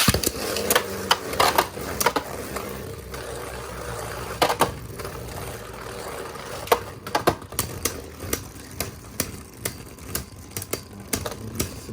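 Two Beyblade Burst spinning tops launched into a plastic stadium at the start, then spinning and scraping with a steady whir, with repeated sharp clacks as they collide, coming quicker near the end.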